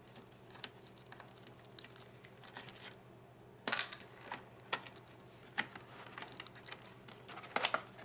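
Irregular light clicks and taps of small parts being handled inside an opened laptop: a screwdriver at the optical drive's screws, and fingers at cable connectors and the drive. A few louder clicks come in the second half.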